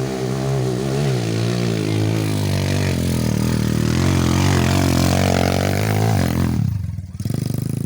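Motorcycle engine running under throttle, its pitch rising and falling. About six and a half seconds in the throttle closes and it drops to a quieter, uneven putter.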